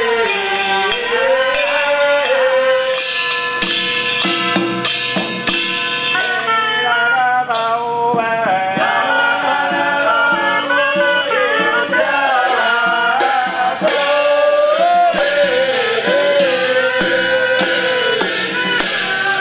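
Hakka ritual music: a single gliding, ornamented melody over drum and cymbal-like percussion, with repeated strikes throughout.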